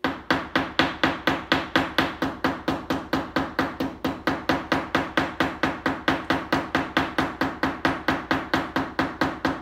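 Ball peen hammer tapping rapidly and evenly on a sterling silver tube rivet set through a pebble, about five light strikes a second, peening the rivet's flared edges down so it sits tight and flat against the stone.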